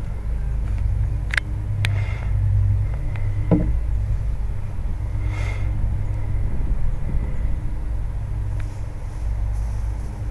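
Steady low machine rumble with a faint hum, broken by a few sharp clicks and a brief knock.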